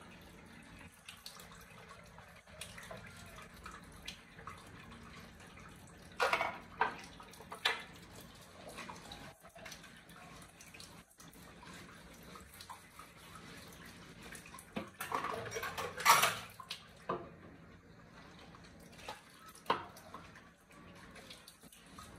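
Washing up at a kitchen sink: a faint trickle of water with scattered clinks and clatters of dishes. The longest, loudest run of clatter comes about fifteen to sixteen seconds in.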